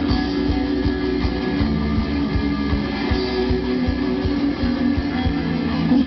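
Punk/hardcore band playing live: electric guitars strumming chords over bass and a steady drum beat, an instrumental stretch without vocals.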